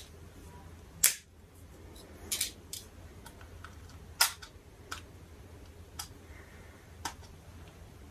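Sharp plastic clicks and snaps, about seven spread unevenly, the loudest about a second in: the battery-compartment door of a Zoom F1 field recorder being pressed and forced back shut.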